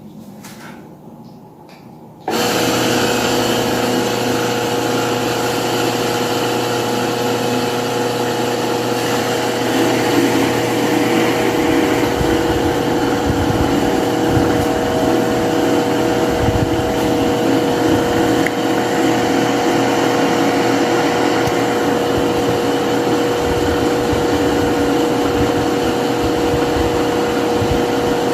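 Britânia Philco 155 W electric fan switched on about two seconds in, then running steadily: a constant motor hum with a whooshing rush of air from the blades.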